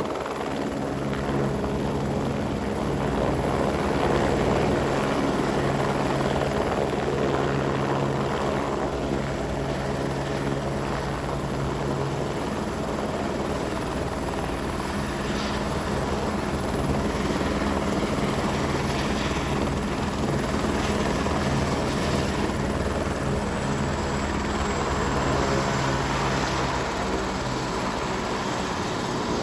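Airbus AS350 B3 Esquilo helicopter running steadily, its turbine and rotor giving a continuous hum with a broad whooshing noise over it.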